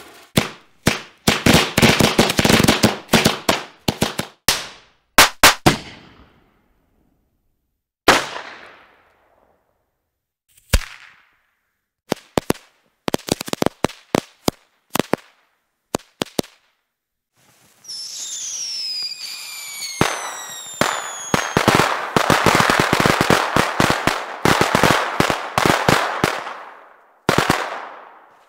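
Fireworks going off: clusters of sharp bangs and pops with short silent gaps between them. About two-thirds of the way through, a hiss with falling whistles is heard, then a long run of rapid crackling.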